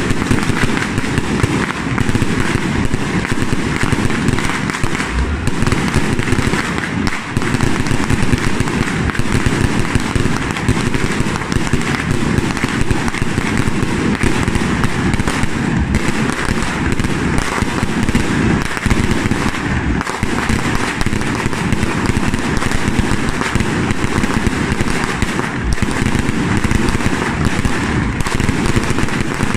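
Firecrackers going off in a continuous, dense crackle of rapid bangs that does not let up.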